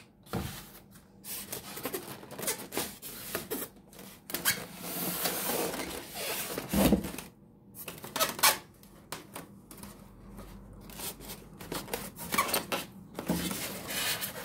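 Polystyrene foam packing and cardboard rubbing and scraping as an appliance is unpacked by hand, with scattered clicks and two sharper knocks about seven and eight and a half seconds in.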